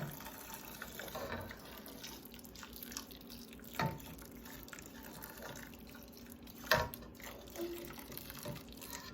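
Chicken bouillon broth being poured from a kettle into a pan of rice and butter, a faint steady trickle, with a couple of light knocks about 4 and 7 seconds in.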